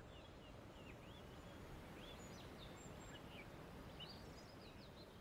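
Near silence: a faint outdoor ambience of low hiss with scattered short, high chirps, fading out near the end.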